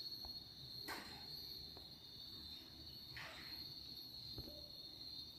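Faint, steady high-pitched insect-like trill, with a few soft knocks and a brief rustle about a second in and again about three seconds in.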